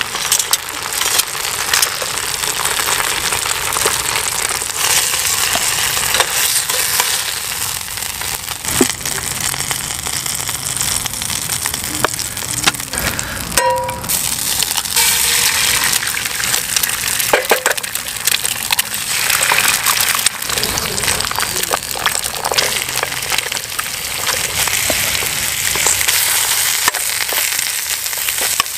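Bacon, sausages and then eggs frying in a steel skillet on a gas cartridge stove: steady sizzling with spitting crackles, broken by a short clink about halfway through.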